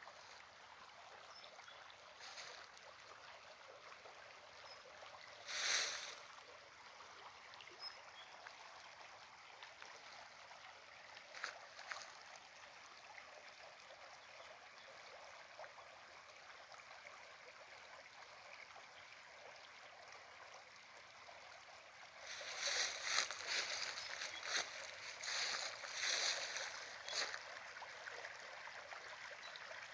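Small stream running steadily, with a few short louder splashes or rustles and a longer run of them about three-quarters of the way through.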